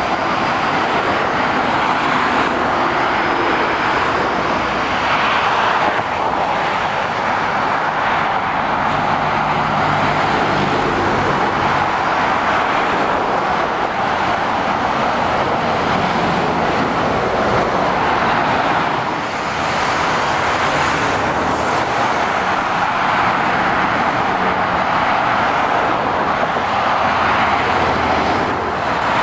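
Continuous motorway traffic: lorries and cars passing below, a steady roar of tyres on the road with a low diesel engine hum from the lorries at times.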